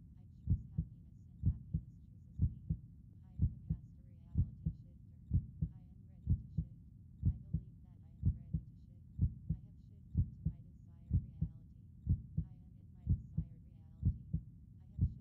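Heartbeat sound, a slow steady lub-dub: paired low thumps repeating about once a second.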